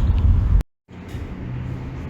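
Loud low rumble with wind buffeting the microphone that cuts off abruptly a little over half a second in, followed by a moment of silence and then a quieter steady hum with a low tone.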